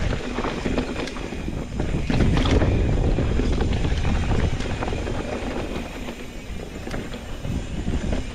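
Mountain bike rolling over a loose, soft-dirt trail, with wind rushing over the camera microphone and scattered short knocks and rattles from the tyres and bike.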